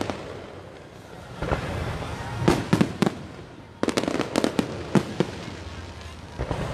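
Aerial fireworks bursting in a series of sharp bangs: a few about two and a half seconds in, a quick cluster around four seconds, and more near the end.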